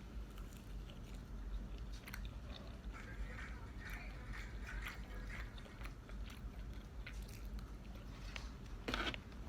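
A person chewing and biting fast food, soft irregular mouth clicks close to the microphone.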